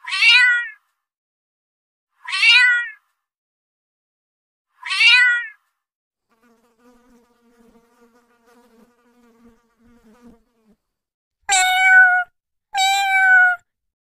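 Domestic cat meowing: three short calls falling in pitch, about two and a half seconds apart, then a faint steady insect wing buzz for about four seconds, then two more meows held at a steadier pitch near the end.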